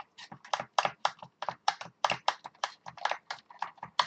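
Keys on an Atari 1200XL keyboard being pressed in quick, uneven succession, about five clacks a second, while the keyboard is tested after its Mylar repair.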